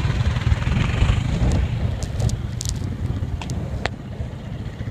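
Dirt bike engine running at low speed as the motorcycle rides close past and away, its sound slowly fading, with wind on the microphone and a few sharp ticks about two to four seconds in.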